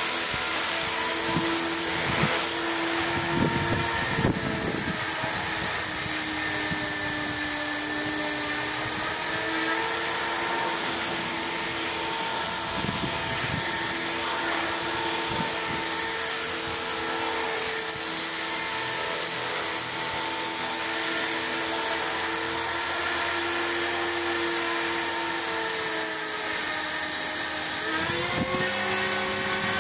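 Electric T-Rex 450-class RC helicopter running, a steady whine from its electric motor and drive gears over the whir of the spinning rotor. The whine dips slightly in pitch, then rises sharply near the end as the head speed picks up. Wind gusts buffet the microphone a few seconds in and again around the middle.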